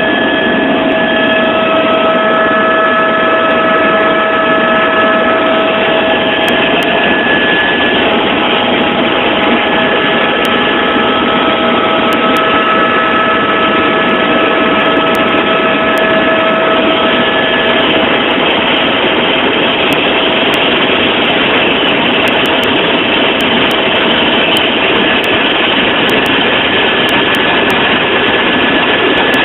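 Helicopter in flight: the engine and rotor make a loud, steady drone with a few faint, steady whining tones that fade in and out.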